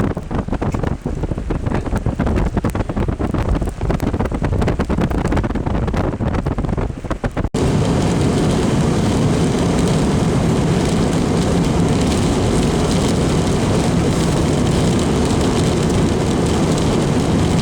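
Wind buffeting the microphone in uneven gusts. About seven and a half seconds in there is an abrupt cut to a steady, dense rushing noise, heaviest at the low end.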